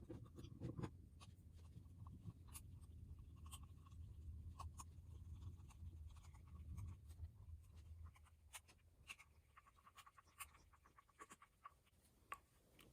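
Faint handling noise of plastic blaster parts being fitted together: scattered small clicks and light rubbing, over a faint low rumble that fades about eight seconds in.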